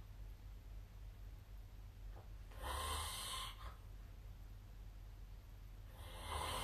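A sleeping person snoring: two long, rasping breaths about three and a half seconds apart.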